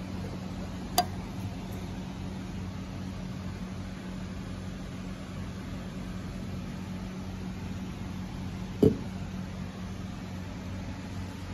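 Mercedes E320 convertible's fuel filler door: a sharp click about a second in as it is pushed open, then a louder thump near the end as it is pressed shut. A steady low hum runs underneath.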